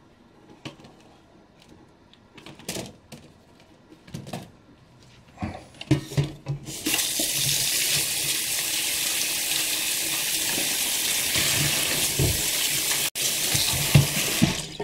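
Kitchen tap running full onto apples in a plastic colander in a steel sink, a steady splashing hiss that starts about seven seconds in. Before the tap comes on there are only a few light knocks as apples are set in the colander.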